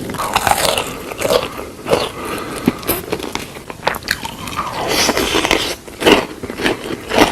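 Close-miked chewing and biting: irregular wet mouth sounds and small crunches as food is eaten.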